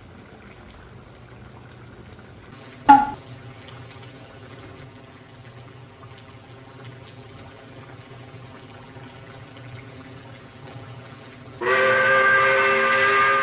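Edited-in sound effects over a low background hum: a short, loud tone sliding sharply down in pitch about three seconds in, and near the end a loud video-game-style electronic jingle starts.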